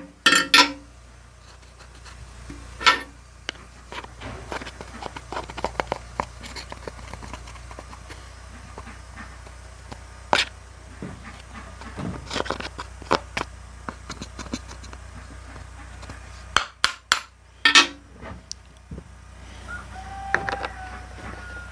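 Scattered metallic clicks and knocks of a chainsaw chain and bar being handled while the chain is fitted on a Stihl MS 162, with a few louder knocks about three-quarters of the way through.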